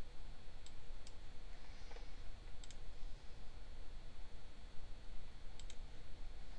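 A few sharp computer mouse clicks, some in quick pairs, over a steady low background hum.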